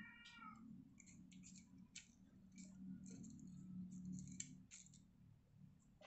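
Faint small clicks of a screwdriver and metal knob parts being worked on a baitcasting reel handle, over a low steady hum. A brief high animal cry, falling in pitch, sounds right at the start.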